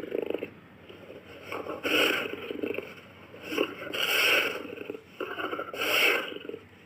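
Jaguar's rough, rasping grunts, about four in a row roughly two seconds apart, the last stopping near the end.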